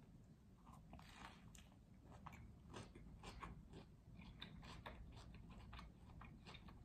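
Faint chewing of a bite of veggie sub sandwich with lettuce and cucumber: irregular soft crunches and small wet mouth clicks.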